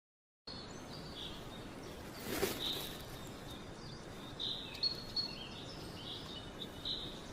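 Small birds giving short, high chirps here and there over a faint outdoor background hiss, with one brief louder rustle about two and a half seconds in.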